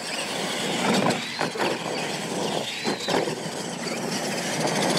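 Radio-controlled monster trucks racing flat out on a dirt track: a whining rush of motors and drivetrains with faint rising and falling whines, dipping briefly a few times.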